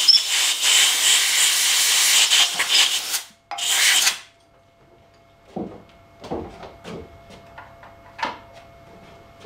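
Compressed-air blow gun blasting air into freshly solvent-cleaned tapped holes in an aluminium oil housing to dry them out: a loud hiss that breaks off briefly about three seconds in, resumes, then stops about four seconds in. After that come a few light knocks and clatters of tools being handled.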